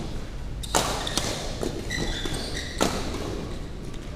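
Badminton rackets hitting a shuttlecock during a doubles rally: two sharp smacks about two seconds apart, with fainter hits in between.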